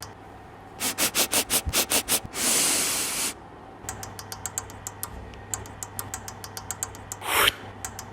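Foley sound effects: a quick run of about a dozen sharp taps, then a short hiss, then many lighter rapid ticks with one loud whoosh near the end.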